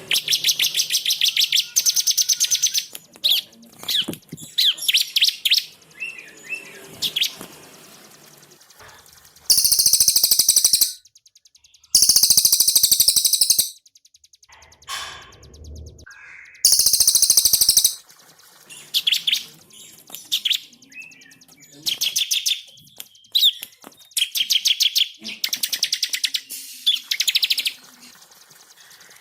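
Cililin and ciblek (bar-winged prinia) singing: loud, very rapid high trills about a second and a half long, repeated every few seconds, alternating with shorter varied chirps and brief pauses.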